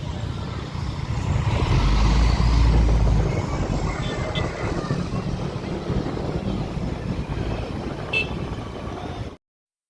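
Intercity bus passing close by: engine and tyre noise swelling to a deep rumble about two seconds in, then easing off. The sound cuts off suddenly near the end.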